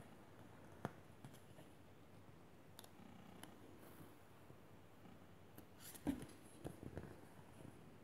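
Faint rustling and crinkling of a vinyl sticker's paper backing sheet as it is handled and a small piece is peeled off, with a light tick about a second in and a few soft knocks around six to seven seconds in.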